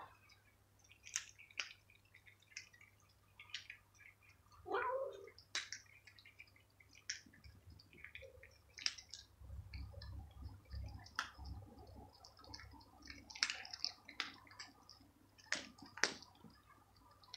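Cats chewing dry kibble, an irregular series of sharp crunches, with a short meow about five seconds in.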